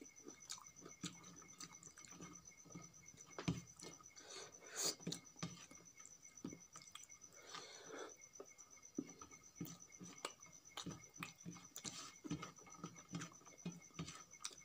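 Close-miked eating sounds of rice eaten by hand: fingers squishing and mixing rice on a steel plate, with wet chewing and lip smacks as many small irregular clicks. A faint steady high whine sits underneath.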